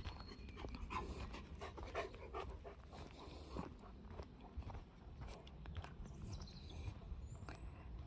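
Footsteps crunching on a sandy, twig-strewn forest path, with a dog panting.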